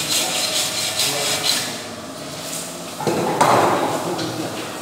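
Hand tool stroked back and forth on a metal piece clamped in a bench vise: a rapid run of scraping strokes that stops about a second and a half in. About three seconds in there is a louder burst of noise.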